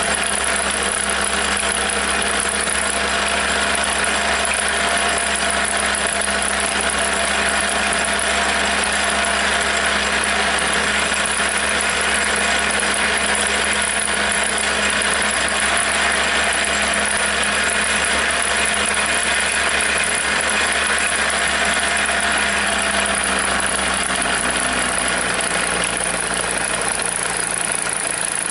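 Jensen No. 5 toy steam engine running steadily, driving a Pericaud toy workshop's overhead line shafts, pulleys and belts.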